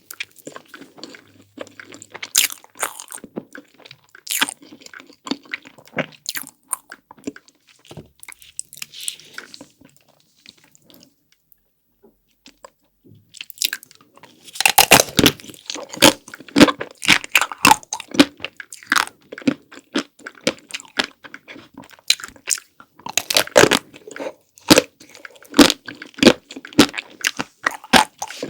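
Close-miked eating: crunchy bites into chocolate-coated ice cream, the chocolate shell crackling, then chewing. After a short pause about ten seconds in, a run of loud, dense crunching begins around the middle.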